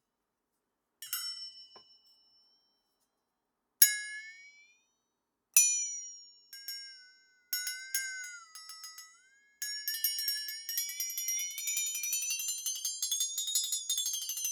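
Flexatone: single strikes of its beaters on the steel blade, each ringing with a bending, wobbling pitch. About ten seconds in it is shaken into a fast rattling tremolo whose pitch glides slowly upward and starts to fall near the end.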